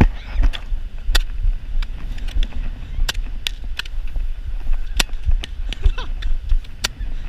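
Fireworks going off in a fight: a string of sharp pops at irregular intervals, a dozen or so, over a low rumble on the microphone.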